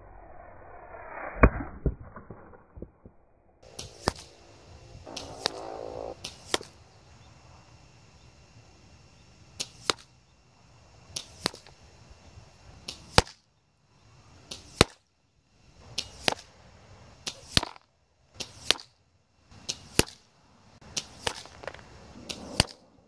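A string of sharp cracks from a Kral Arms Puncher Armour .22 bullpup PCP air rifle being fired at a paper target, about twenty shots at irregular intervals, often in close pairs.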